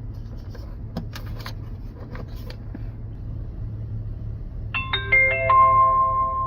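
A few light clicks and knocks as the portable car screen is plugged in, then about five seconds in the screen plays its power-on chime: a quick run of notes, the last one ringing on for about two seconds.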